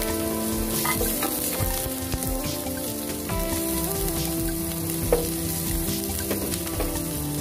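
Raw sliced red onion and minced garlic sizzling in oil in a nonstick pan at the start of a sauté, stirred with a wooden spatula that gives a few light taps against the pan. Background music with a slow melody plays over it.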